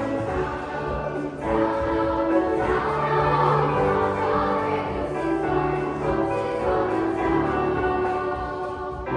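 A choir singing together in several parts, holding long notes.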